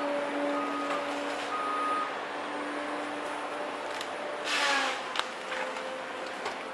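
Cat 521 tracked forest harvester's engine and hydraulics running with a steady hum. A short burst of harsher noise comes about four and a half seconds in.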